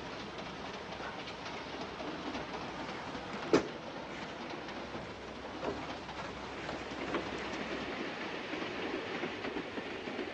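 Passenger train running on the rails, a steady rumble with faint clicks of the wheels over rail joints, and one sharp knock about three and a half seconds in.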